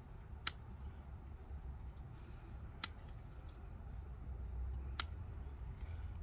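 Three sharp snips of scissors cutting through chilli stems, about two seconds apart.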